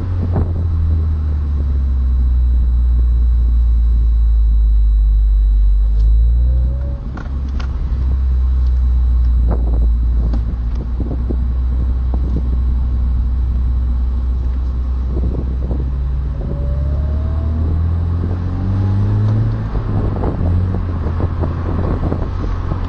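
BMW Z4 E85 2.0i four-cylinder engine and road noise: a loud, steady low rumble on the move, dipping briefly about seven seconds in, with the engine note rising in pitch as the car accelerates in the later part.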